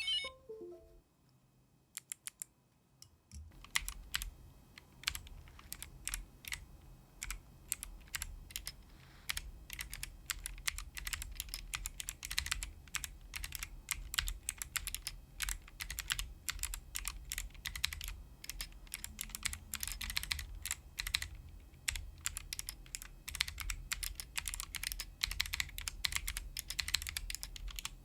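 Typing on a Planck EZ 40% ortholinear mechanical keyboard with stock Kailh Speed Bronze clicky switches: a couple of lone key presses, then from a few seconds in a continuous run of sharp clicky keystrokes.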